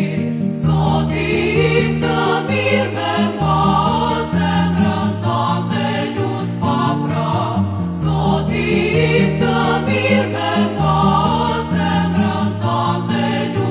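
Choral song with instrumental backing, the bass moving in long held notes under the singing.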